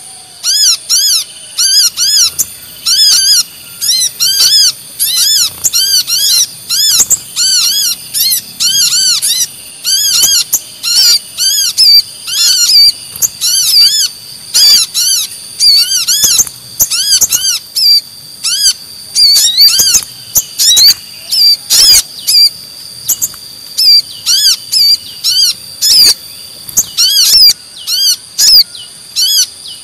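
Brown-throated sunbird lure calls: rapid runs of sharp, repeated arched chirps, several a second, mixed with the calls of a second lure bird (sogon), over a steady high-pitched tone.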